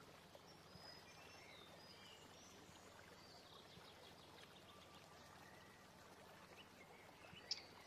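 Near silence: faint outdoor background with a few faint, short, high bird chirps.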